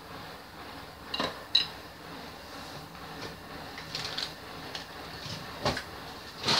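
Tableware clinking as a ceramic bowl and chopsticks are set down on the table, two sharp clicks, then scattered light knocks and a dull thump near the end as a large board is handled.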